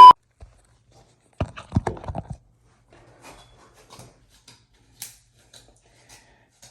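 A loud steady beep cuts off right at the start. A short cluster of soft knocks and clicks follows about one and a half to two seconds in, then scattered faint clicks over near silence.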